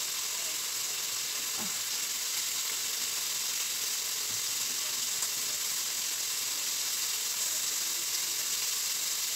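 Food sizzling steadily in a frying pan on a gas hob.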